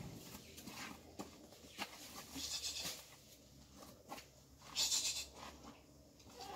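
Quiet background with scattered light knocks and two short hissing bursts; right at the end a goat starts to bleat.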